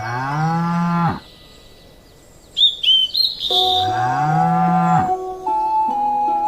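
A cow mooing twice, each moo about a second long, rising in pitch and then dropping off sharply at the end, with short high chirps between the two.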